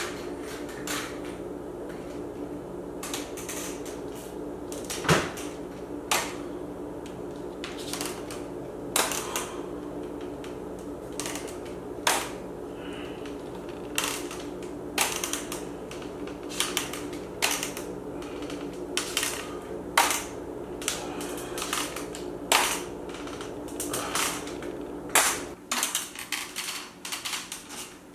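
Aluminium underarm crutches knocking and clicking on a hardwood floor as a man walks slowly on them, a sharp tap every second or so in an uneven rhythm.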